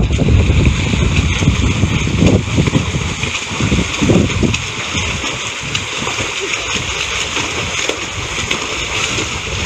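Several swimmers splashing as they race across a pond, arms and kicks churning the water, with indistinct voices alongside.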